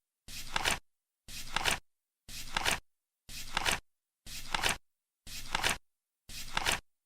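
Flip clock ticking over once a second: seven identical flips, each about half a second long, building from a soft flutter to a sharp clack as the card lands.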